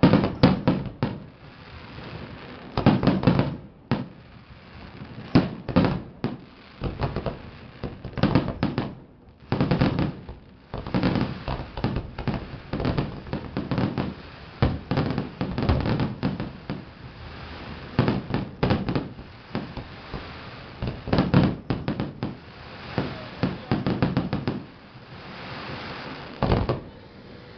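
Fireworks display: shells bursting in irregular volleys of sharp bangs and crackles, a fresh cluster every second or two.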